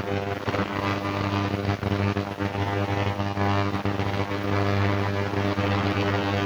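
Ultrasonic cleaner running with a fire-damaged Nokia 3110c circuit board in its tank: a steady low electrical buzz with a hiss above it.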